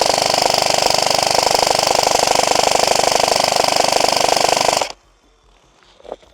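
Airsoft gun firing a long full-auto burst: a rapid, even rattle of shots that cuts off suddenly about five seconds in.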